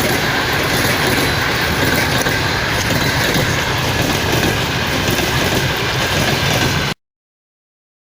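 A train passing close by: loud, steady rumble and rail noise that stops suddenly about seven seconds in.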